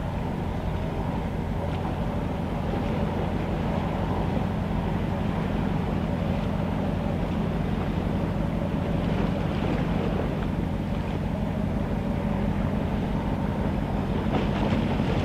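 Low, steady rumble of a ship's engines heard across open water, with wind buffeting the microphone.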